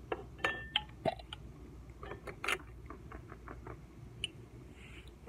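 Light clicks, taps and scratches of small glass jars being handled while pieces of dried eggshell are picked out, with one click about half a second in ringing briefly like glass.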